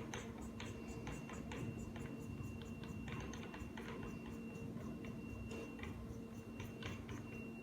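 Scattered light clicks and ticks of metal parts being handled as the collar crimping head is fitted onto a manual crimping machine, over a steady hum.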